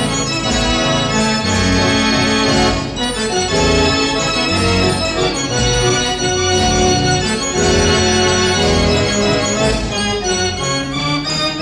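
A Ruth band organ, a German-built fairground organ, playing a tune: held pipe notes carry the melody over a steady bass and accompaniment.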